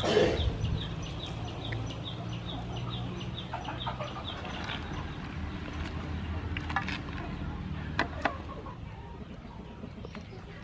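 A bird chirping rapidly, about three or four short calls a second for the first four seconds or so, over a low steady hum. Milk pours into the pan at the very start, and near the end chopsticks click sharply against the pan a few times.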